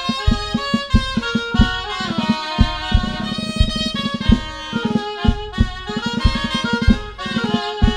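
Two dulzainas, Spanish double-reed shawms, playing a pasodoble melody together over a drum keeping a steady march beat.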